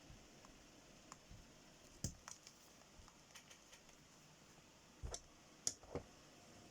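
Faint, scattered clicks and light knocks of headphone parts being handled while a replacement headband slider is fitted, with a few sharper clicks about two seconds in and again between five and six seconds in.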